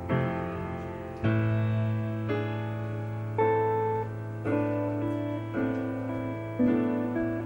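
Piano playing slow, gently struck chords, about one a second, each ringing out before the next, over a low bass note held underneath from about a second in.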